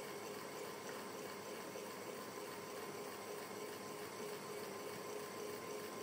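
Electric fan running steadily: an even hiss of moving air with a faint steady hum underneath.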